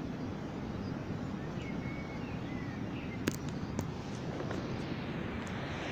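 Outdoor ambience: a steady low rumble of wind on the microphone, with a few faint bird chirps in the first half and two sharp clicks a little past the middle.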